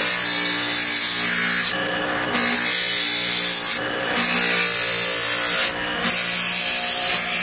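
Small electric motor driving a sanding wheel, with the bowl of a cast aluminium ladle pressed against it: a steady motor hum under a loud, high abrasive hiss. The hiss breaks off briefly three times, about two, four and six seconds in, as the ladle is lifted off the wheel.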